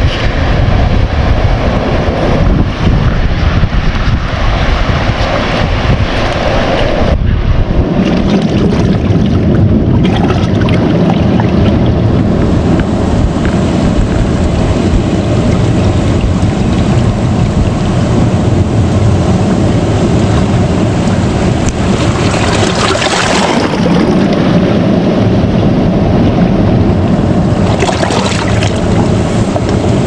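Sea water washing and lapping among jagged shoreline rocks, with wind rumbling on the microphone for the first several seconds. Bigger surges of wave wash swell in about two-thirds of the way through and again near the end.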